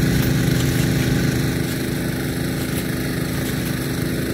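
The small engine of a water pump runs steadily at a constant pitch, pumping water to a Nelson P150 big gun sprinkler, with the hiss of the sprinkler's water jet over it.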